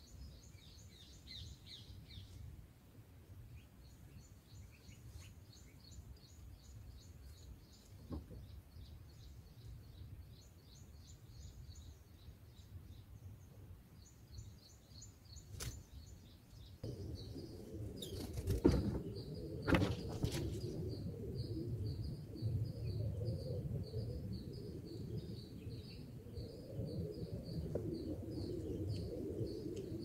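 Rapid series of short, high cheeps from white-eye nestlings begging at the nest. Past the middle a low rumbling noise comes in, with two sharp knocks close together.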